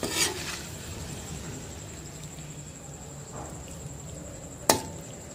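A metal spoon scrapes once across a steel wok of thick curry, then there is only a faint steady high-pitched insect trill, like crickets. A single sharp clink of the spoon on the wok comes near the end.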